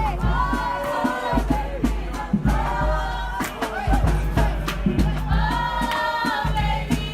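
Music: several voices singing together over a heavy bass and a quick percussive beat.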